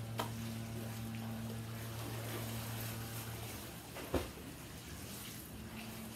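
Water sloshing and lapping in a backyard swimming pool under a steady low hum, with a single sharp knock about four seconds in.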